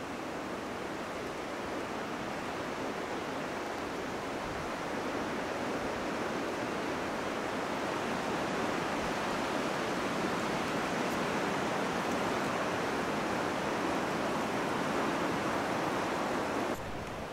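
Steady rushing beach ambience of wind and small waves washing on the sand, growing slightly louder, then dropping abruptly near the end.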